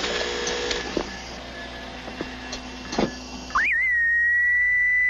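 Hospital monitoring equipment: a mechanical whirring with a few clicks, then about three and a half seconds in a steady high electronic alarm tone comes on, wavering briefly before holding one pitch. It marks the patient's vital signs failing.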